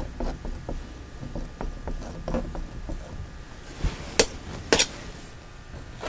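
Painting knife working oil paint on a stretched canvas: a run of small scrapes and taps, with two sharper clicks about four seconds in.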